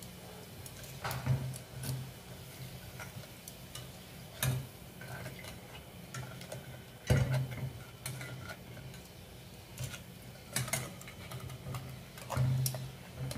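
Metal tongs clicking and tapping against a stainless steel pot while turning kerupuk crackers frying in oil: irregular sharp clicks, loudest about seven seconds in.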